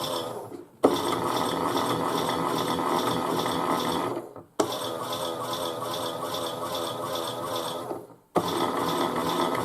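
Small battery motor of a Chad Valley toy washing machine whirring steadily through a wash cycle. It cuts out briefly and starts again sharply three times, about every four seconds, as the drum pauses between turns.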